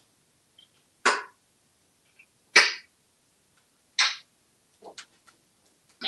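African grey parrot making three short, sharp sounds about a second and a half apart, with a fainter one and a click near the end.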